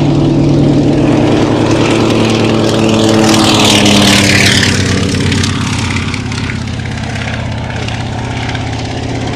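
Propeller aircraft flying past: a steady engine drone that grows loudest a few seconds in, drops slightly in pitch as it passes and then fades.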